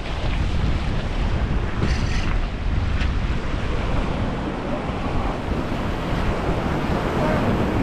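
Steady wash of waves against the inlet rocks, with wind buffeting the microphone.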